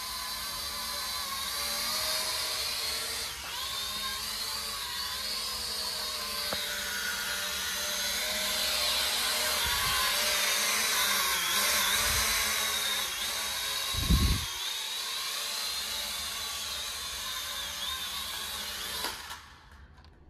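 E99 K3 Pro mini quadcopter's motors and propellers whining, several high tones wavering in pitch as the drone flies, with a few low thumps, the loudest about 14 seconds in. The whine cuts out about a second before the end, when the battery runs flat, which the owner puts down to the battery not being fully charged.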